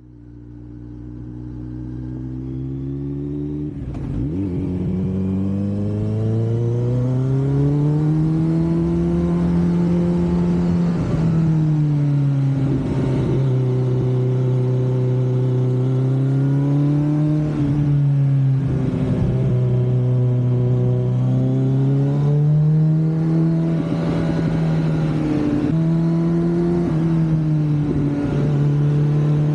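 Kawasaki Z900's inline-four engine on the move, its pitch climbing and dropping again and again with throttle and gear changes, over wind noise on the microphone. The sound swells up over the first few seconds.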